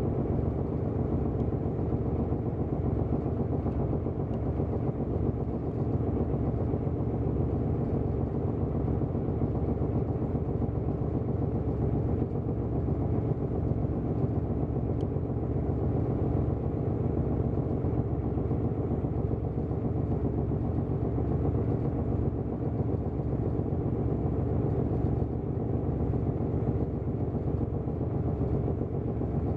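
Boat engine running steadily with an even, low throb.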